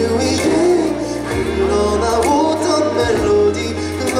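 Live pop ballad performance: a male vocalist singing through a PA over band accompaniment, with a steady bass line and regular cymbal strokes.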